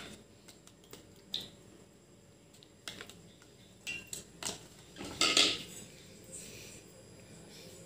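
Scattered light clicks and clinks against a metal pan, with a few brief soft rustles, as cooking oil is poured into the pan.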